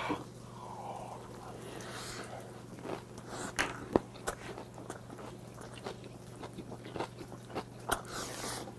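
A person chewing a large mouthful of grilled pork belly wrapped in kimchi, close to a clip-on microphone: irregular short clicks and crunches throughout, the sharpest about four seconds in. A steady low hum sits underneath.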